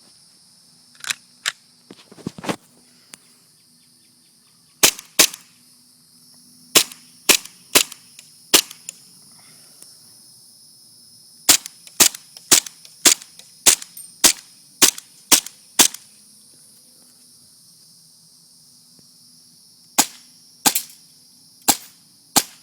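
Airsoft M1911 pistol firing about two dozen sharp shots in irregular strings, with a quick run of roughly two shots a second in the middle and pauses between the groups.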